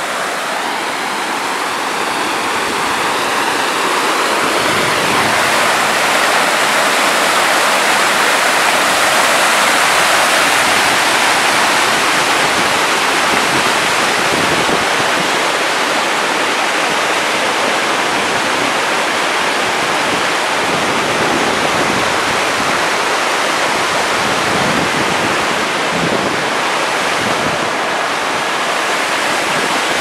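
Waterfall: white water rushing and splashing down a rocky cascade in a steady, loud rush that swells a little in the first few seconds.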